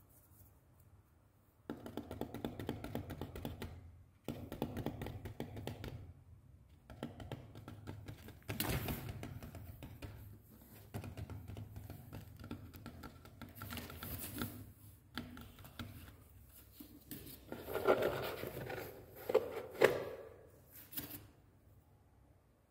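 A kitten scrabbling and rustling, its claws scratching on a cloth pillow and a cardboard box. The scratching comes in repeated bouts, with the loudest scrapes near the end.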